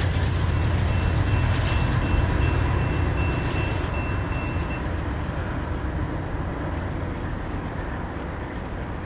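Loaded coal train's hopper cars rolling past at speed: a steady heavy rumble and rattle of wheels on rail that slowly fades. A faint, evenly repeating high ding sounds over it for a few seconds near the start.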